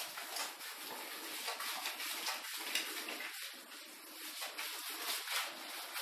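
Hands scrubbing shampoo lather into a wet dog's leg and paw fur: a continuous, irregular wet rubbing.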